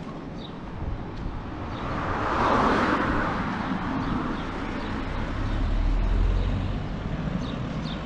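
A car passes on the road close by, its tyre and engine noise swelling to a peak about three seconds in and then fading. A deep rumble rises again about six seconds in.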